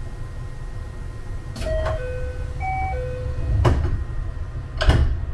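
Train's sliding doors closing: a short electronic door warning chime of a few clean tones, then knocks and a clunk as the doors shut, the loudest clunk near the end, over the low rumble of the idling train.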